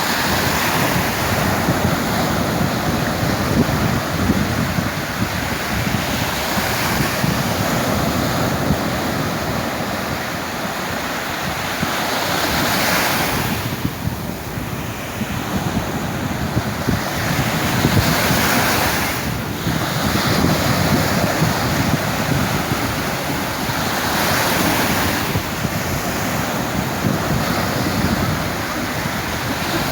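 Sea waves breaking and washing on the shore, swelling every few seconds, with wind buffeting the microphone.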